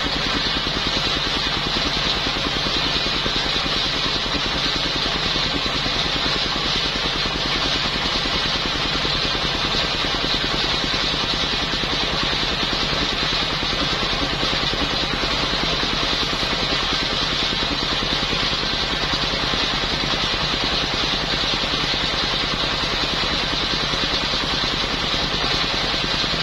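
Engine-driven circular saw machine running steadily, its engine firing in an even rapid beat with a bright high whine.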